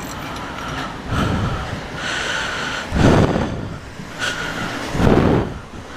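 Yamaha MT-03 motorcycle with a Jeskap exhaust, its dB killer removed, running with three loud surges of revving about two seconds apart.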